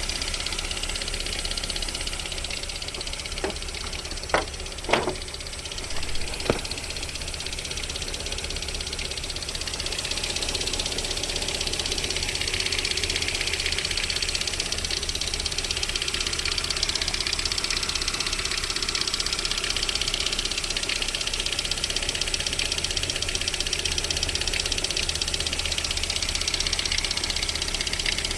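VAZ 21127 1.6-litre 16-valve four-cylinder engine running with a knock that appears while it warms up (the owner says it goes away by about 40 °C), the cause of which is unknown to him. A few loud, sharp clicks come about four to six seconds in, and a higher hiss grows louder in the second half.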